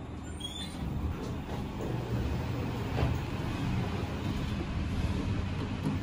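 Elevator car in motion: a steady low rumble and hum that grows a little louder after about a second, with a couple of faint clicks.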